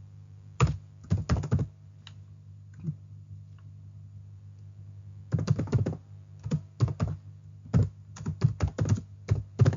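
Typing on a computer keyboard: a few keystrokes about a second in, a pause, then a quick run of keystrokes from about five seconds in, over a steady low hum.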